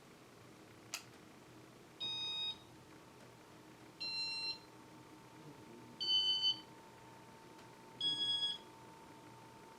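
Casablanca IntelliTouch fan control beeping as the ceiling fan is stepped down through its speeds one at a time. There is a click about a second in, then five short high beeps about two seconds apart, each at a slightly different pitch. Under them runs a faint steady tone.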